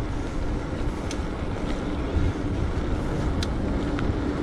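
Wind rushing over the microphone and tyre and road noise from riding a bicycle, with a couple of faint clicks.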